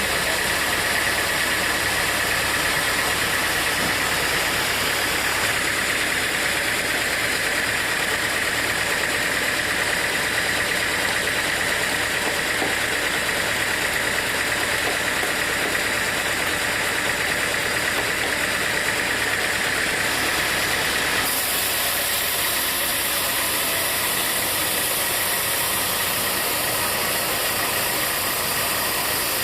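Sawmill machinery running steadily: a constant mechanical din with a high, steady whine. About two-thirds of the way through, the sound changes abruptly, the whine dropping away and a brighter hiss taking over.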